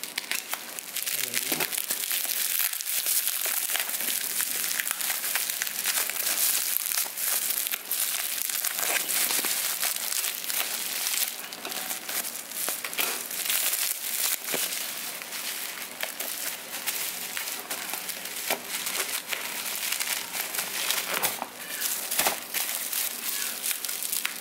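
Plastic bubble-wrap packaging being cut open and pulled off a box by hand: a dense, continuous crinkling and crackling of plastic.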